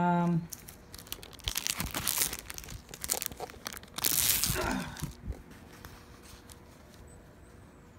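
Clear plastic protective film on a diamond-painting canvas crinkling and crackling as the canvas is handled, loudest about four seconds in and stopping after about five seconds.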